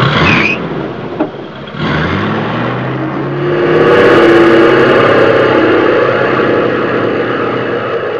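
Electric motor and propeller of a Dynam Focke-Wulf RC plane spinning up for a takeoff run: a whine that rises in pitch about two seconds in, then holds steady and loud.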